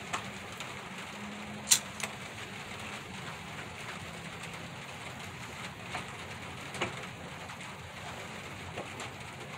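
Steady rain falling on a wooden chicken coop, heard from inside, with a few sharp clicks from a lighter and glass pipe being handled. The loudest click comes a little under two seconds in.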